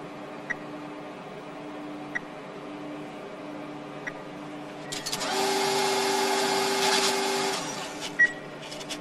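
Bank ATM keypad beeping as the withdrawal amount is keyed in, three short beeps a second or two apart. About five seconds in, the cash dispenser runs with a loud mechanical whirr for about two and a half seconds as it counts out the banknotes, ending in a sharp click.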